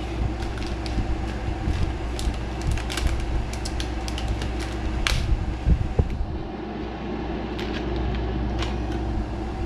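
Plastic soft-bait bag crinkling and crackling in short sharp bursts as it is handled and opened, over a steady low room hum.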